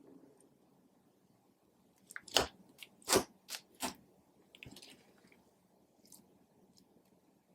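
Clear slime with green eyeshadow and glitter mixed in, being squished and kneaded by hand. After a near-quiet start it gives a run of sharp, wet clicks and pops, the loudest about two to four seconds in, then a few fainter ones.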